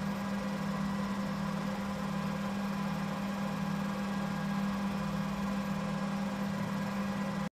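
Steady machinery hum with a strong constant low tone and fainter higher tones over a background hiss, breaking off abruptly at the very end.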